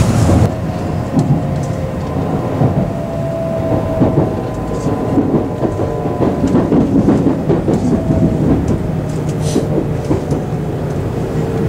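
Cabin noise inside a Nozomi Shinkansen bullet train on the move: a steady running rumble with a faint whine that slides slowly in pitch, and a few light knocks.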